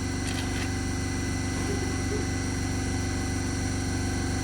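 BMW N57 straight-six diesel engine idling steadily.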